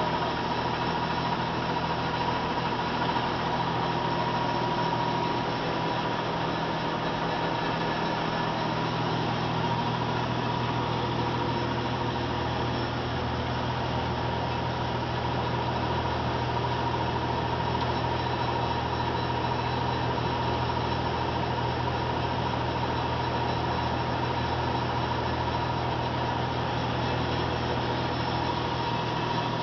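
Molins Mk8 cigarette-making machine, converted, running steadily and feeding and cutting rods. It makes a dense, even mechanical noise with a constant high whine.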